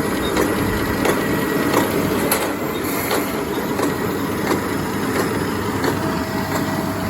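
International Harvester 1026 Hydro tractor engine running steadily while pulling a New Holland 570 small square baler, with the baler knocking at regular short intervals as it packs hay.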